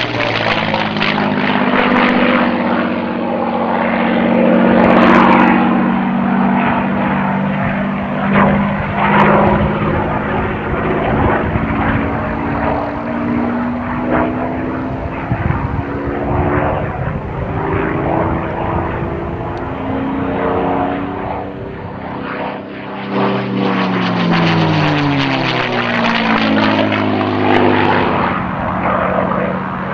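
Packard Merlin V-12 engine of a P-51D Mustang making flying passes, running hard with a whistling note, its pitch sliding up and down several times as the fighter flies past.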